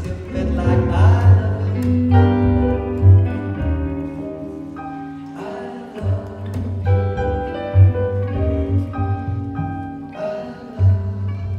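Live band music from a keyboard, an archtop electric guitar and a plucked upright double bass playing together, with the bass notes sounding steadily underneath.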